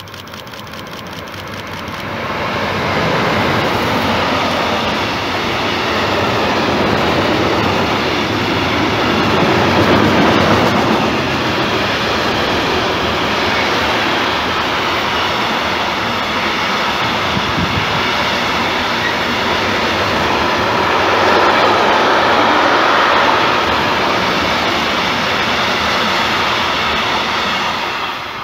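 Long freight train of truck semi-trailers on flat wagons, hauled by an electric locomotive, running through the station at speed. The rumble and rush of wheels on rail builds over the first three seconds, holds steady and loud, and falls away near the end as the last wagon passes.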